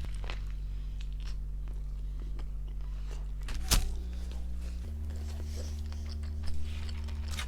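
Close-up chewing of fast food with the mouth closed: soft wet mouth clicks, with one sharper smack a little under four seconds in, over a steady low hum.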